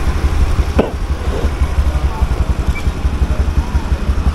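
Motorcycle engine running at low road speed, heard from the rider's seat as a steady low throb, with a brief sharp click about a second in.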